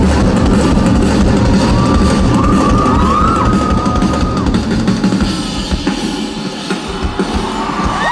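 Live rock band playing: drum kit and bass under a held lead melody line that bends up and down in pitch.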